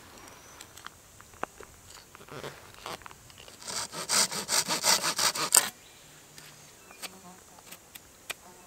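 Knife tip scraping and twisting into a split piece of wood, carving a divot for a bow-drill spindle in a bearing block. A run of rapid scratchy scraping strokes starts about two and a half seconds in and stops suddenly a few seconds later, with a few light clicks around it.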